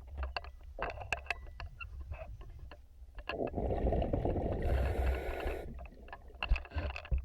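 Underwater sound of a scuba diver exhaling through the regulator: a rush of bubbles about three seconds in that lasts a couple of seconds. Scattered sharp clicks and ticks run through it.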